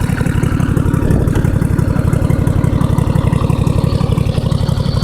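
Lawn tractor's 14 hp Briggs & Stratton Intek engine running steadily at an even speed, its valves freshly adjusted.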